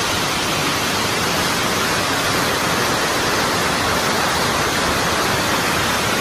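Loud, steady rush of a swollen river cascading over granite boulders at a waterfall.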